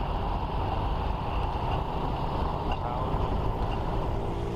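Motorbike being ridden, with wind buffeting the microphone over a steady low rumble of engine and road noise.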